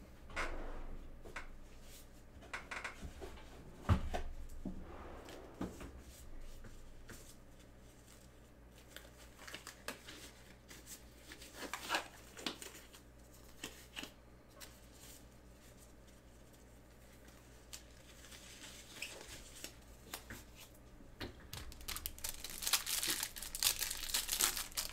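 Scattered knocks and rustles of handling, then near the end the crinkling and tearing of a plastic wrapper being pulled off a pack of trading cards.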